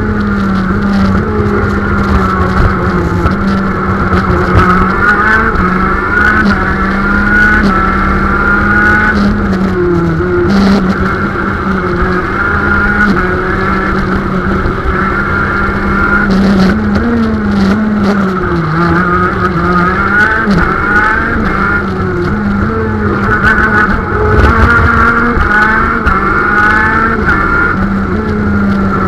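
125cc two-stroke KZ shifter kart engine at race speed, heard onboard: the revs climb again and again through the gears, dropping off under braking twice along the way.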